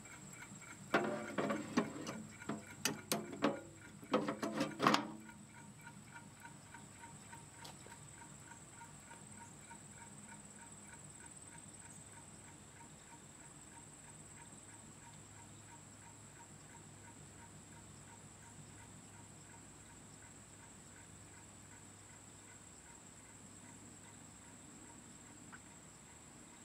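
Antique Paillard 'Mercure' hot air (Stirling cycle) fan running steadily, its engine giving a soft, even, rhythmic ticking. Between about one and five seconds in, a loud run of short, sharp, pitched sounds rises over it.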